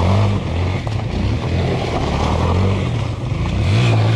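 Motorcycle engines running at low speed and revving, their pitch rising and falling, with a rise again near the end.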